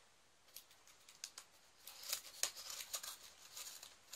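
Packing tape on a cardboard box being cut open with a small blade: a few sharp clicks at first, then a quick run of snips and crackling tape from about two seconds in.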